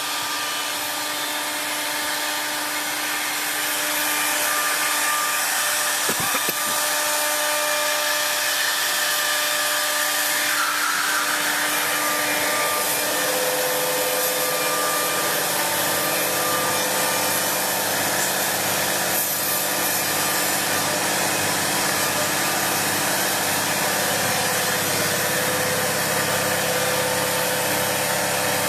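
CNC router spindle running with its cutter machining solid wood: a steady high whine over continuous cutting noise, with a short click about six seconds in and a change in pitch around twelve seconds.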